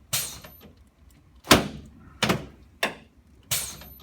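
Sharp clunks from a chiropractic adjusting table under a prone patient as her spine is thrust on, five knocks in quick, uneven succession.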